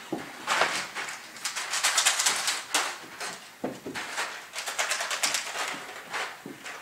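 Intermittent rustling and scuffing in short, irregular bursts, the sound of a child moving about and handling a basket while hunting for eggs.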